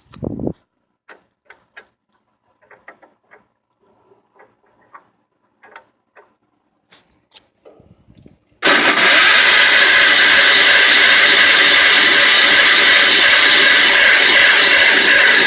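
A few light clicks and taps, then about halfway through a loud, steady mechanical noise starts abruptly: the Wheel Horse garden tractor's 10 hp Kohler single-cylinder engine being turned over on starting fluid, not yet taking properly.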